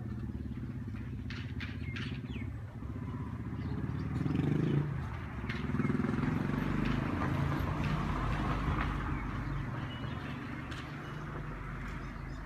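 A motor vehicle engine running steadily with a low hum. It swells louder about a third of the way in, then eases off.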